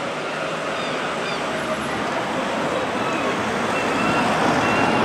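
Town-centre street traffic: a steady wash of engine and tyre noise that grows louder over the last couple of seconds as a vehicle draws close.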